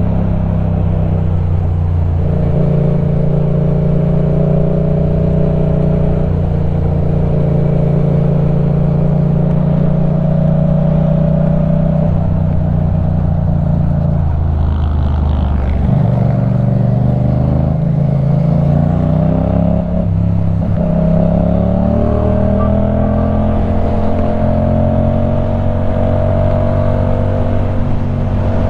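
2015 Yamaha MT-07's parallel-twin engine through a LeoVince One Evo full exhaust, under way at a steady pitch. About halfway through the note drops and breaks, then climbs steadily for several seconds as the bike accelerates, and holds steady near the end.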